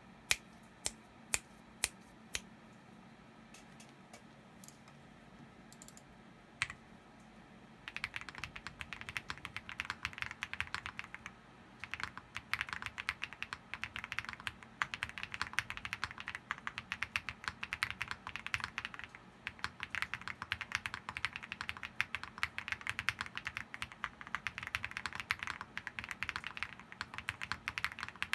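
Typing on an OwLab Mr. Suit R2 custom mechanical keyboard with Krytox-lubed Zaku switches on a POM plate and Apollo clone keycaps. A few single keystrokes come first, then fast, continuous typing from about eight seconds in.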